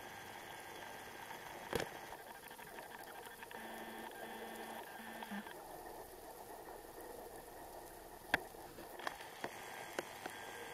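Muffled underwater ambience through a camera's waterproof housing: a steady faint hiss with a few sharp clicks, most of them near the end, and a faint low tone in short pulses a few seconds in.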